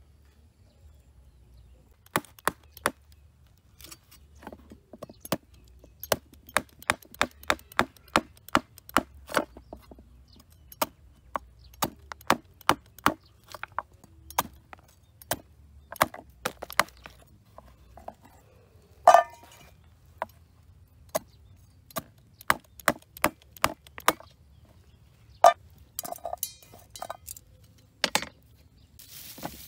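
Steel cleaver chopping a green vegetable on a wooden cutting board: a long run of sharp knocks, several a second in uneven bursts, with one louder strike about two-thirds of the way through.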